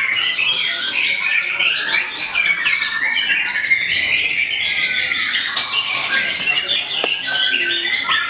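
Contest lovebirds singing at once in a dense, unbroken stream of shrill chattering trills and squawks, the long continuous song bird-contest fans call koncer.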